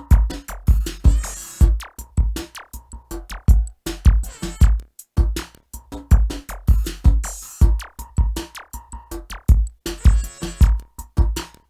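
Electronic music from an M-Audio Venom synthesizer: a busy drum-machine beat of deep kick hits and hissy hi-hats, with a held synth note that comes and goes.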